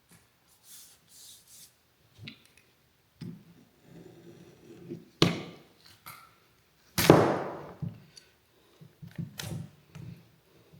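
Double-sided tape and a template being handled on a workbench: scattered rustles and light knocks, with a sharp louder sound about five seconds in and the loudest one about two seconds later, which trails off over most of a second.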